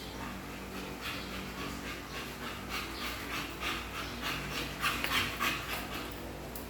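A dog panting quickly and rhythmically, at roughly three to four breaths a second, loudest about five seconds in.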